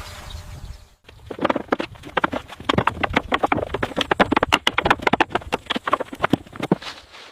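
A rapid, irregular run of short knocks and scrapes, several a second, starting about a second in.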